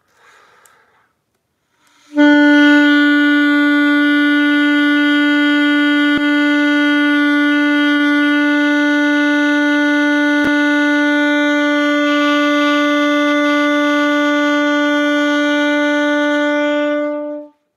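Alto saxophone holding one long, loud B as a tone exercise, blown to project the sound to a distant point. It starts after a short intake of breath, holds steady for about fifteen seconds and ends shortly before the close; the player hears a slight wobble in it, which he puts down to the cold.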